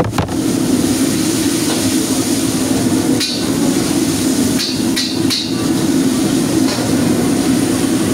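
Commercial gas wok range running at full flame with its extractor hood, a loud steady rushing noise, with a few short, sharper sounds from the wok and ladle between about three and five and a half seconds in.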